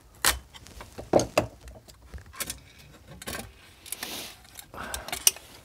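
Metal handling sounds as a corroded metal shielding plate is worked loose and lifted off the amplifier's circuit board: a string of separate sharp clicks and clinks, with two short scrapes about four and five seconds in.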